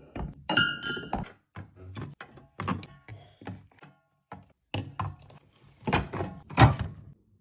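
Drink cans being set into a mini fridge's shelves: a series of short knocks and clunks, a dozen or so. About half a second in there is a brief ringing clink, and the loudest clunk comes near the end.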